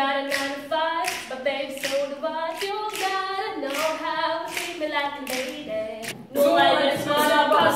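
A girl singing a cappella over hand claps keeping time about twice a second. About six seconds in it gives way to louder, fuller music.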